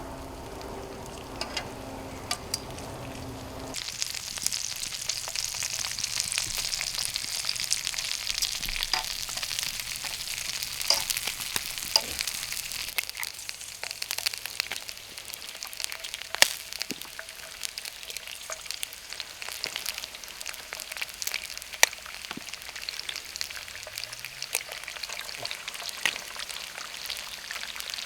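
Sausages, black pudding and bacon frying, a steady sizzle with frequent sharp pops and crackles that gets louder about four seconds in.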